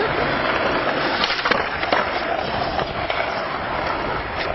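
Skateboard wheels rolling on pavement with a steady grinding hiss, and a few sharp clacks of the board.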